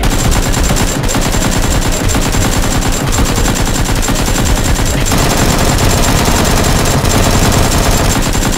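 Sustained rapid automatic gunfire, one continuous machine-gun burst that starts abruptly and keeps going without a break.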